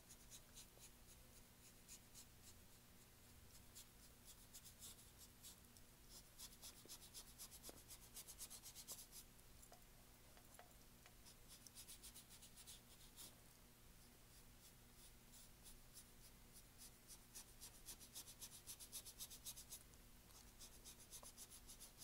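Large flat paintbrush scrubbing acrylic paint onto canvas: faint, rapid scratchy strokes in several runs a few seconds long, over a low steady hum.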